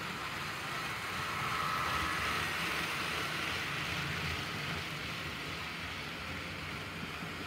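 HO scale model train running on the track, a steady whirring hiss of motor and wheels that swells as it passes close by, about two seconds in, and eases off again after about five seconds.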